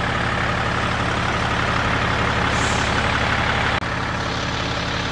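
Scania P93 truck's nine-litre straight-six diesel engine idling steadily, heard close to the chassis. A brief, faint high hiss comes about halfway through.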